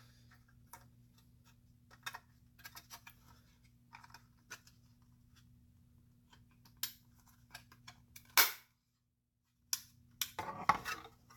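Small parts and tools being handled on a workbench: scattered light clicks and taps, with a louder short scrape about eight seconds in, after which the sound drops out completely for about a second.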